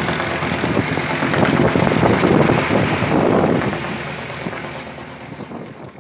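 Boat engine running steadily under heavy wind and water noise, swelling louder about two seconds in and then fading away near the end.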